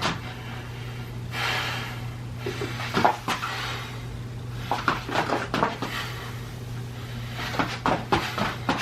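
Scattered knocks and clicks of things being handled and set down, with a short rustle about a second and a half in, over a steady low hum.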